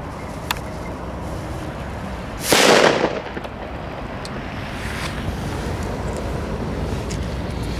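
A Raudi Tipo C match cracker, a vintage Italian friction-lit firecracker, goes off with a single bang about two and a half seconds in. It is heard from some distance, and the report trails off over about half a second.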